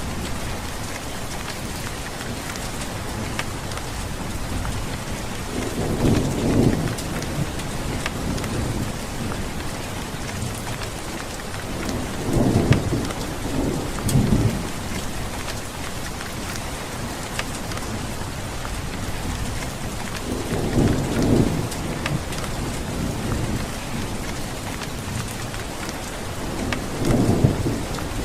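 Steady rain falling, with low rolls of thunder swelling up four times, about every six to eight seconds.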